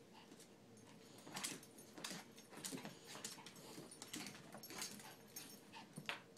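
Small dog whimpering and yipping in excited play, a quick string of about a dozen short sounds starting about a second in.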